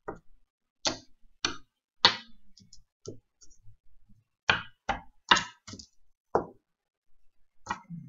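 Irregular sharp clicks and knocks, about a dozen, as small figurines and discs are picked up and set down on a paper-covered table.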